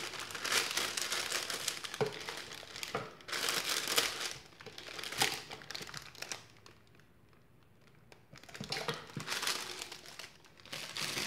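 Clear plastic soap bag crinkling as it is handled and slid into an impulse sealer, with a couple of light knocks. The rustling stops for about two seconds while the sealer arm is held down to seal the bag, then starts again as the bag is handled.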